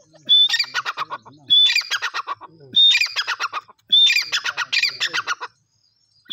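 Grey francolin calling: four loud phrases in quick succession, each opening with a short high whistle and running into a rapid series of repeated notes, with a fifth phrase beginning at the very end.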